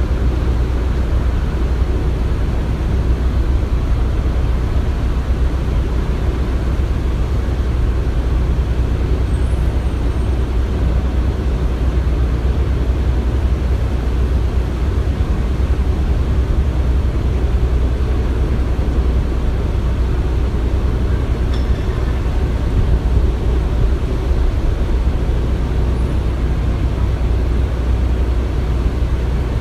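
Construction-site ambience: a steady low rumble of machinery, with no distinct knocks or strikes.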